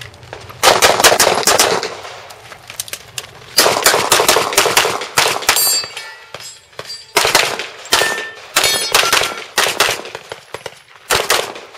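Pistol fired in quick strings of shots, with short pauses between strings. A thin metallic ringing follows some of them.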